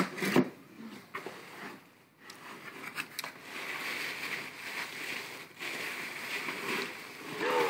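Thin wrapping crinkling and rustling as it is worked loose from around a doll inside a cardboard box. A couple of sharp knocks come within the first half second, and a steady crackle of the wrapping fills most of the rest.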